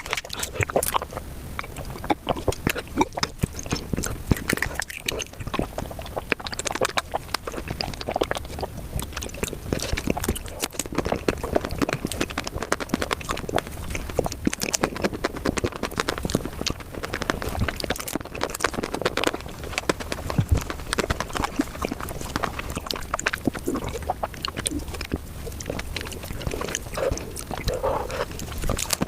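Close-miked eating sounds played at five times normal speed: a fast, dense run of clicks and smacks from chewing.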